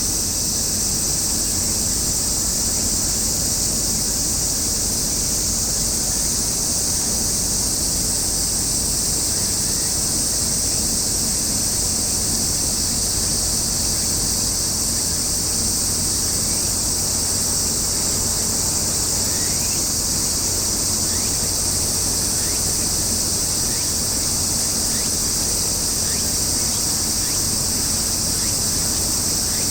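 Steady high-pitched insect chorus that does not let up, over a steady low rumble.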